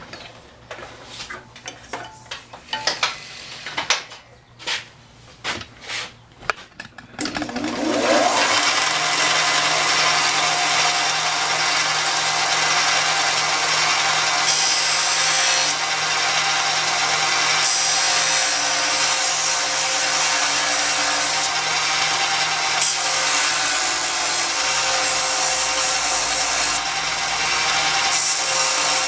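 A few clicks and knocks, then about seven seconds in a power grinding machine spins up with a rising whine. It then runs steadily while a small part is ground down against it.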